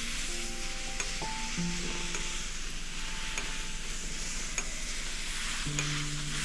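Wood lathe spinning slowly while Danish oil is rubbed onto the turning wood-and-resin piece, giving a steady hiss. Soft background music with held notes plays underneath.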